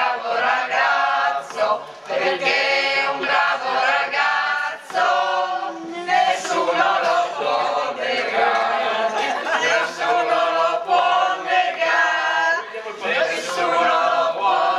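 A group of party guests singing together unaccompanied, several voices chanting a tune in unison.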